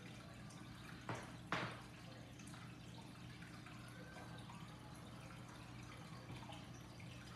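Two short knocks close together about a second and a half in, the second louder, over a steady low electrical hum.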